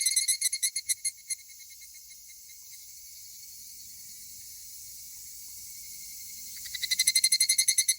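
Higurashi (evening cicada) males calling: a rapid pulsing 'kana-kana' call tails off and stops about a second in, and another call starts up near the end, quickly growing louder. A faint steady high insect hiss runs in between.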